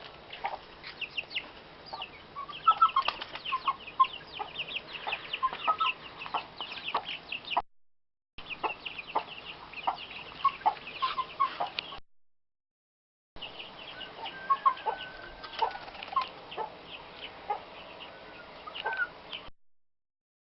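Chickens clucking among a busy chorus of high, short peeps from chicks. The sound breaks off into silence three times.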